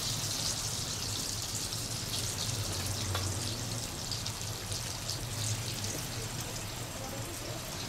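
Chicken wings deep-frying in a pan of hot oil: a steady sizzle with small crackles, over a low steady hum.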